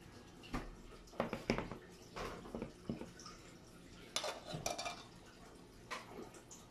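Metal spoon clinking and scraping against a plastic food container, a series of sharp, irregular clatters.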